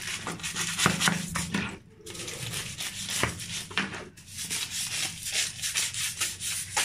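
A cleaning brush scrubbing a wet hard surface in quick back-and-forth strokes, its bristles rasping against it, with brief pauses about two seconds in and again about four seconds in.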